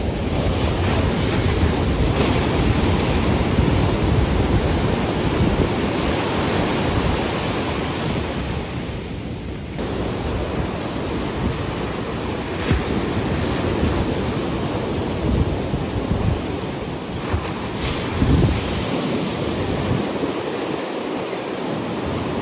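Ocean surf breaking and washing up the beach in a steady rush of water noise, with wind rumbling on the microphone.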